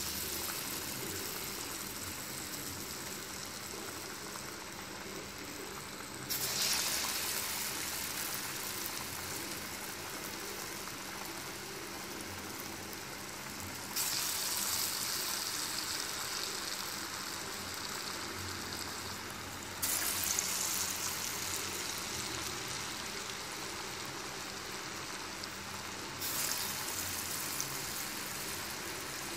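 Hot oil sizzling steadily as grated-cassava balls deep-fry in a wok. The sizzle jumps louder each time another ball is dropped in, four times about six seconds apart, and eases back between drops.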